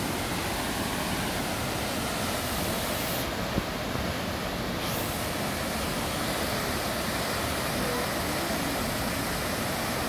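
Steady roar of Düden Waterfall: heavy falling water making an even rushing noise, with one short knock about three and a half seconds in.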